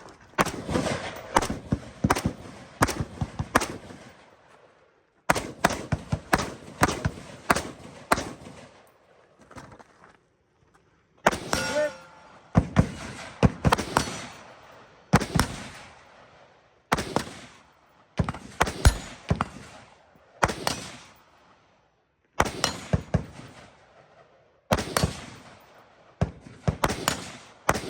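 Gunfire: many shots fired in quick strings of several at a time, with short pauses between strings, each shot trailing a brief echo.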